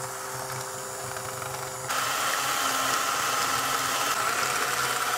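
Electric hand mixer beating eggs and sugar in a glass bowl, its motor running steadily at low speed, then stepped up to a higher speed about two seconds in, becoming louder and higher-pitched.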